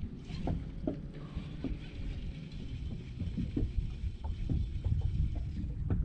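Small waves slapping against a bass boat's hull as a low, uneven rumble, with scattered light knocks.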